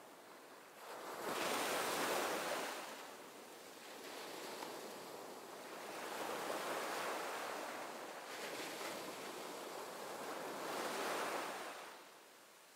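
Ocean surf breaking and washing, in three swells a few seconds apart, the first the loudest.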